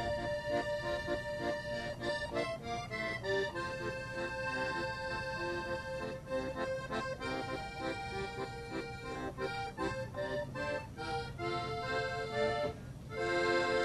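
Piano accordion playing a tune: held melody notes over a quick, even rhythm of short bass and chord strokes, with a brief break shortly before the end.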